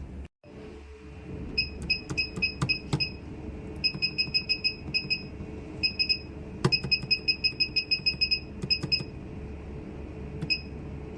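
Short high electronic beeps from a laser-lipo machine's touchscreen as buttons are pressed, coming in quick runs of about five a second with short pauses between runs, over a steady low hum.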